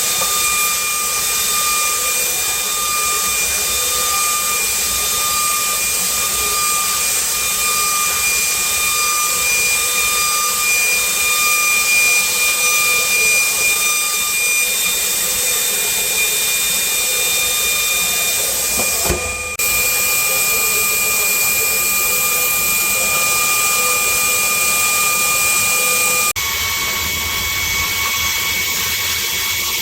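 CNC router spindle milling aluminum, with a steady high-pitched whine over a strong hiss of cold air sprayed at the cut by a Cool-Mist air cooler. About four seconds before the end the sound changes abruptly: the whine drops slightly in pitch and the hiss thins.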